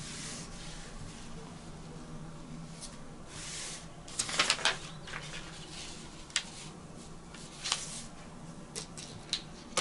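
Paper pattern pieces and cotton-polyester shirt fabric rustling and sliding on a tabletop as hands smooth the cloth and lay the patterns down, with several short crinkles and taps, most around the middle, over a steady low hum.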